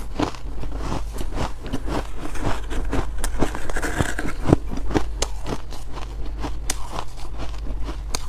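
Hard frozen buckwheat ice being bitten and chewed: dense, irregular crunching and crackling of icy chunks in the mouth.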